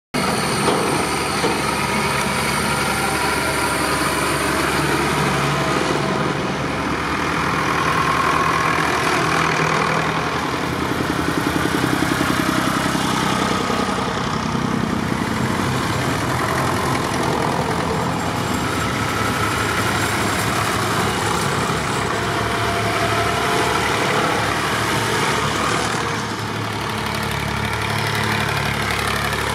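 Tractors, vintage and modern, driving past one after another, their engines running steadily and swelling louder as each one comes close.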